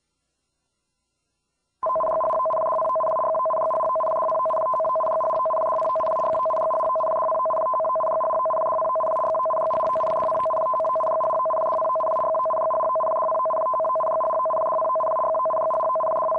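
Japanese Emergency Warning Broadcast System (緊急警報放送) signal: a loud electronic warble that flips rapidly between two pitches, starting about two seconds in and holding steadily for about fifteen seconds. It is the signal broadcast to switch on receivers and announce a major tsunami warning.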